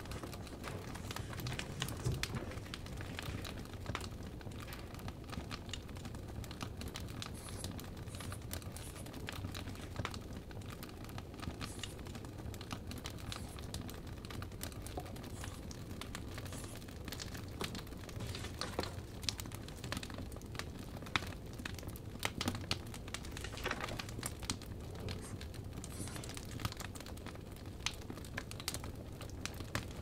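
Burning firewood crackling, with irregular sharp pops and snaps scattered over a steady low background.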